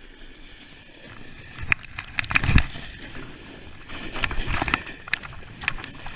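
Snowboard sliding and turning through snow: a steady scraping hiss broken by irregular knocks and thumps, the loudest about two and a half seconds in.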